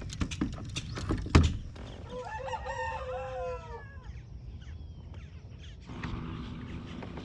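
A rooster crowing once, a single drawn-out call that falls away at the end. Just before it come a few sharp knocks and clicks, the loudest about a second and a half in.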